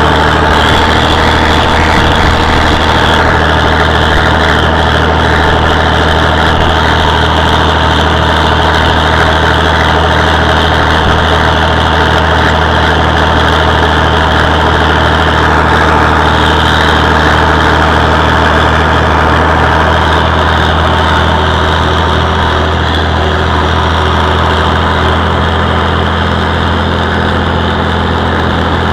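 Oliver 1955 tractor's engine running steadily at an even speed as the tractor travels down the road.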